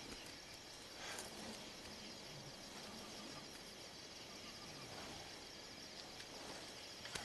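Quiet, steady background ambience: a soft hiss with a faint high-pitched chirping that repeats evenly throughout, and a slight swell about a second in.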